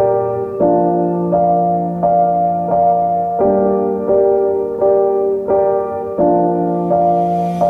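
Background piano music: soft sustained chords struck in a slow, even rhythm.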